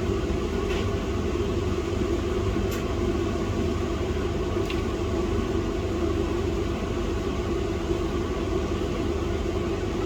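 Steady machine hum with a low rumble, like a motor running continuously, with a few faint light clicks.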